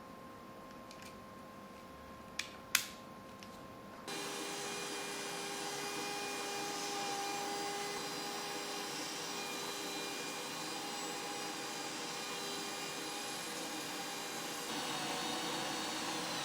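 Two sharp clicks, then about four seconds in a small electric motor starts and runs steadily with a hum.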